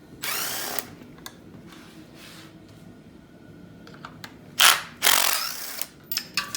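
Cordless impact gun spinning bolts out of an LS engine in three short bursts, its motor whine rising in pitch each time, followed near the end by a few light metallic clicks of loose bolts.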